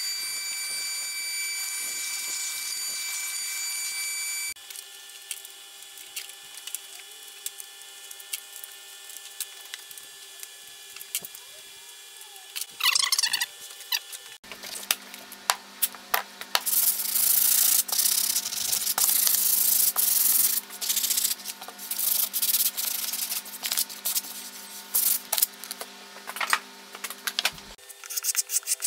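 A shop vacuum runs with a steady whine for the first few seconds, then stops. After a stretch of light scattered taps, a long run of hand-sanding strokes rubs over the carved kauri pine in quick irregular bursts, over a low steady hum.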